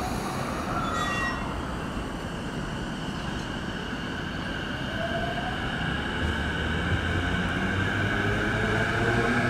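Electric commuter train on the JR Yokohama Line running through a station, with a whining motor tone that starts rising in pitch about five seconds in as the sound grows louder.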